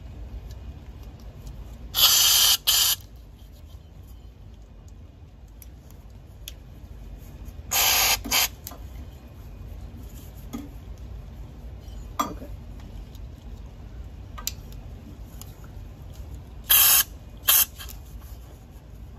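Three bursts of spray hiss from an aerosol can, each a long spray followed at once by a short one, several seconds apart. Faint clicks fall between them.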